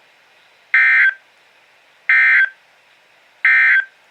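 Emergency Alert System SAME digital data bursts: three short, buzzy warbling bursts of two-tone data, about a second and a half apart, the end-of-message signal that closes the tornado warning broadcast.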